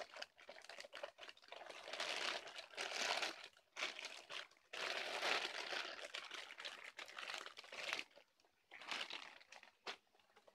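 Clear plastic wrapping crinkling and rustling in irregular bursts as a toy crane truck is pulled out of it, dying away near the end.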